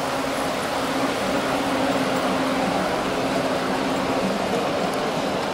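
Ride-on 7¼-inch gauge miniature diesel-outline locomotive running past on the track, a steady hum over a rushing noise of wheels on rail.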